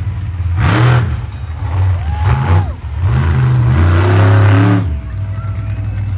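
Monster truck engine revving in three loud bursts, the pitch climbing and dropping each time, over a steady low engine drone.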